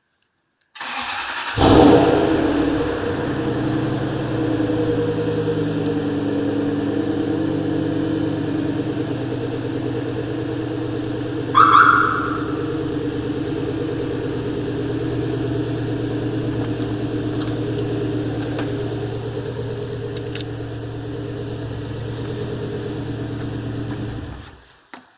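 Toyota Tundra's engine remote-started by the Pandora alarm. The starter cranks briefly and the engine catches about two seconds in, then idles steadily. A short high beep sounds about halfway, and the engine shuts off near the end.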